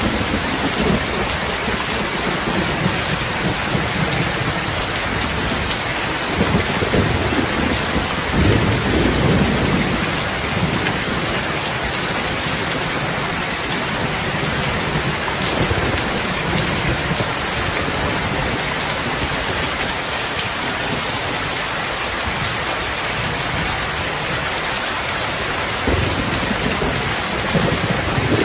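Steady heavy rain, with low rolls of thunder swelling about six seconds in and again near the end.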